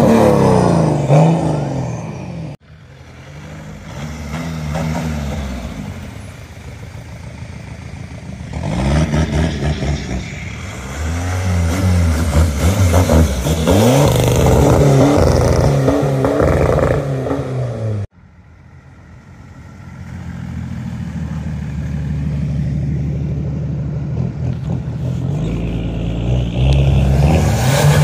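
Car engines and exhausts revving and accelerating as cars pull away one after another, the engine note rising and falling with each pass. The sound breaks off abruptly twice where one car's pass gives way to the next.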